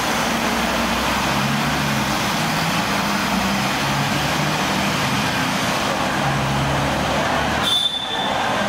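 City traffic noise from the road beside a covered walkway: a steady roar of passing vehicles with a low engine hum. It dips briefly near the end.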